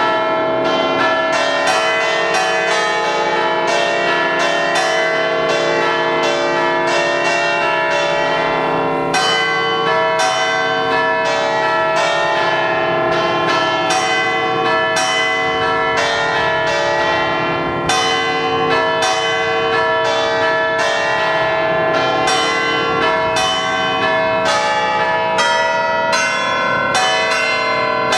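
Concert of eight tuned church bells in C, cast by Pasquale Mazzola in 1879, struck in quick succession to play a tune. The strokes come about two to three a second and their ringing overlaps into one continuous peal.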